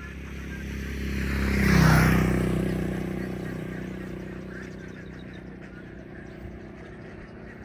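A motor vehicle passes close by. Its engine and road noise swell to a peak about two seconds in, the engine pitch drops as it goes past, and the sound then fades away slowly.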